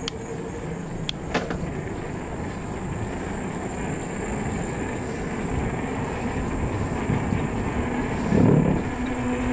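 E-bike tyres rolling over the planks of a wooden boardwalk bridge, a steady low rumble, with a couple of sharp clicks about a second in and a louder bump near the end.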